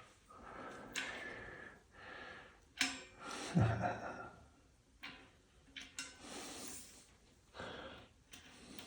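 Quiet handling sounds as small ratchet parts are worked out of a bicycle hub by gloved hands: rustling and a few sharp clicks, with breathing close to the microphone.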